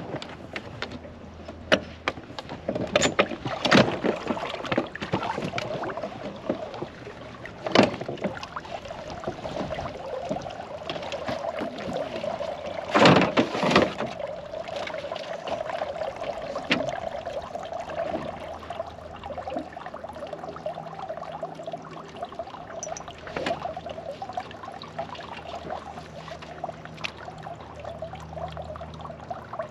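Irregular clunks and knocks of a paddle and gear against the hull of a flat-bottomed fishing boat as it is pushed along with a paddle, the loudest cluster about halfway through, over a steady hum.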